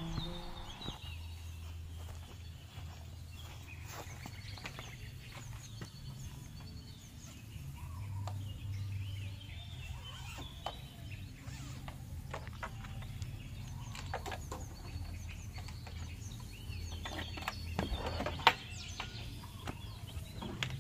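Birds chirping and calling over a steady low hum, with scattered knocks and clatters as things are handled in the back of a van; one sharp knock comes near the end.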